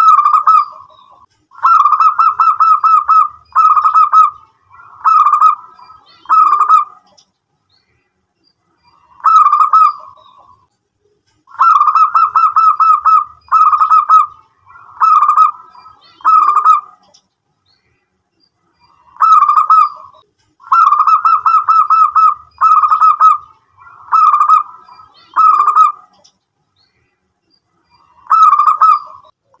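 Local-strain zebra dove (perkutut lokal) cooing in its typical song: bouts of about five short coo phrases, each made of quick pulsed notes, with pauses of a few seconds between bouts. Three full bouts come through, and a fourth starts near the end.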